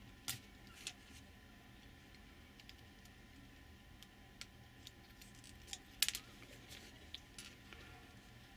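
Small hard plastic model-kit parts clicking and tapping as fingers handle a figure and press a part into place, with a few sharper clicks about a third of a second in, near one second, and at about six seconds.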